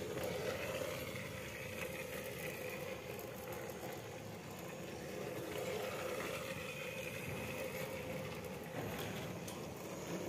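Battery-powered Thomas the Tank Engine toy train running steadily around its plastic track: a small electric motor whirring, with the light rattle of the plastic train on the track.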